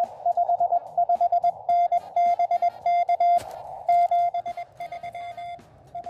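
Morse code (CW) signal on the 20 m band heard through a QRP Labs QCX-mini transceiver's small external speaker: one steady mid-pitched beep keyed in dots and dashes over a faint hiss of band noise. The signal grows weaker about four and a half seconds in.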